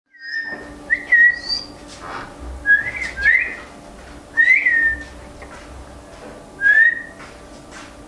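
Male ringneck parrot whistling a series of short, clear notes, each gliding up and then down in pitch, with pauses of a second or two between them.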